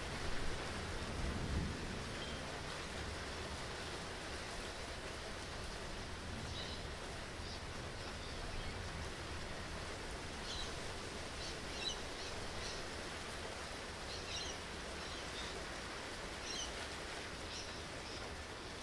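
Steady rain falling in a storm. A low rumble of thunder comes in the first two seconds, and short high bird chirps come and go from about six seconds in.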